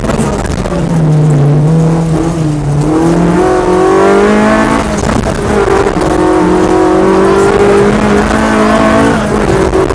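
Peugeot 205 kit car's engine heard from inside the cabin, accelerating hard through the gears. The pitch climbs, then drops back at each upshift, three times, over steady tyre and road noise.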